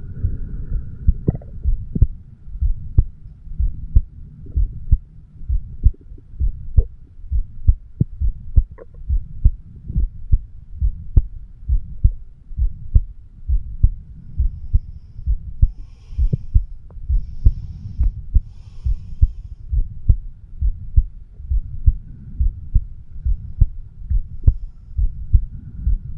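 Adult human heartbeat heard through a stethoscope microphone pressed to the chest: a steady rhythm of low, muffled thumps, about one beat a second.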